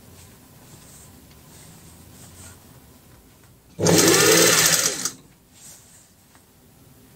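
Industrial sewing machine stitching in one short, fast run of about a second, starting about four seconds in and stopping abruptly.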